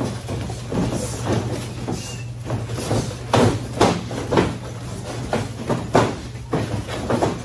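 Irregular thuds of gloved punches landing during boxing sparring, the sharpest cluster in the middle and another about six seconds in, over a steady low hum.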